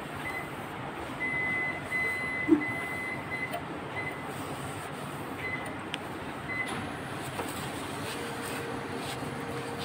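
A cloth wipes the metal guide rail and carriage of a copier's scanner, over steady background noise. A high steady tone comes in short broken stretches during the first half, a sharp knock sounds about two and a half seconds in, and a low steady hum starts near the end.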